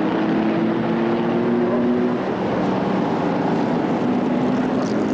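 Historic sports racing car engine pulling hard under acceleration, its note rising slowly over the first couple of seconds. A second rising engine note comes in near the end.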